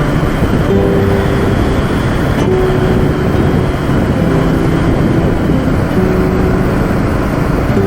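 Steady engine and travel noise of a moving vehicle, heard from on board. A faint melody of held notes comes and goes over it.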